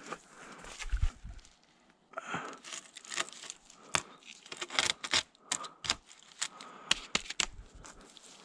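Dry twigs and forest-floor litter crackling and snapping in quick, irregular clicks as a long pole with dead branch stubs is handled and moved. A low thud about a second in.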